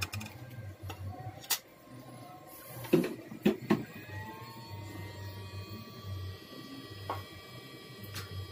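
Scattered sharp clicks and taps of small tools being handled on a laptop motherboard at a repair bench, a cluster of them about three seconds in, over a steady low hum.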